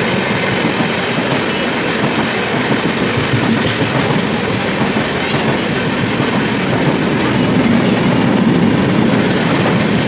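The LHB coaches of an express train passing at full speed, a loud, steady rush of wheels running on the rails that swells a little about eight seconds in.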